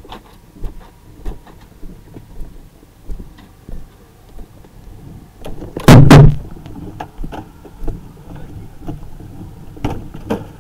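Scattered knocks and clanks from overhaul work on a burned garage's corrugated metal siding, with one loud double crash about six seconds in.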